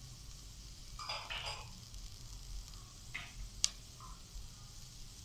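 Sliced vegetables sautéing in oil in a nonstick wok, sizzling faintly, with a few brief stirring scrapes and one sharp click about three and a half seconds in.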